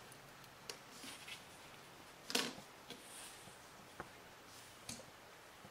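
Faint, scattered clicks and light taps of small parts being handled and set in place on an iPhone 4S logic board, with the loudest tap about two and a half seconds in.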